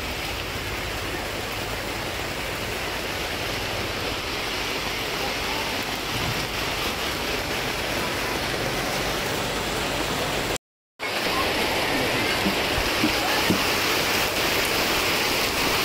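Steady rain falling, a continuous hiss. It cuts out completely for about half a second around eleven seconds in and comes back somewhat louder.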